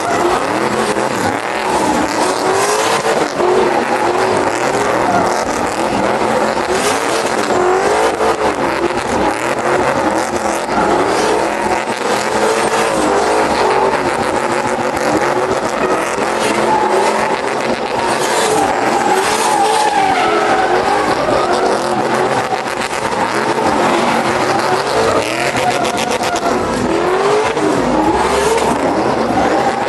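Pickup trucks doing burnouts and donuts together: engines revving up and down, over continuous tire squeal. The sound is loud and steady throughout.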